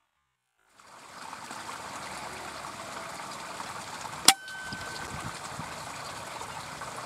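Steady outdoor hiss that comes in about a second in, then about four seconds in a single sharp air rifle shot with a brief ring after it.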